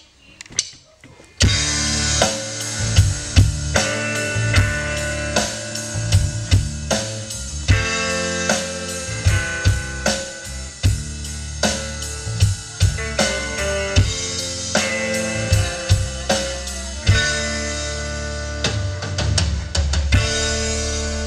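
Live band playing an instrumental intro on saxophone, guitar, bass guitar and drum kit, coming in together after a few sharp clicks about a second and a half in, with a steady drum beat. The music eases off near the end before a crash brings the full band back.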